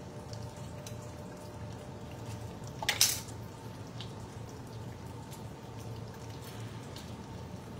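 Water dripping and splashing softly as fish are cleaned by hand at a sink, with one brief louder noise about three seconds in.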